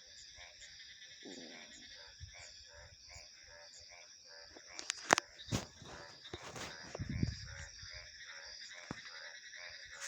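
A steady chorus of animal calls repeating a few times a second over a high continuous hum, with several sharp loud clicks about halfway through and a short low rumble a couple of seconds later.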